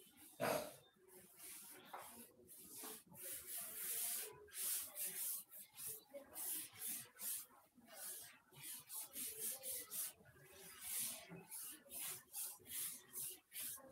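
Blackboard duster wiping chalk off a chalkboard: repeated rubbing strokes, about two to three a second, after a short knock near the start.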